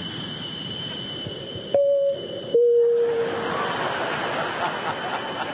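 Vocal imitation of an airliner cabin: a steady jet-engine rush with a thin high whine, broken about two seconds in by a two-note high-low cabin chime whose second note fades out.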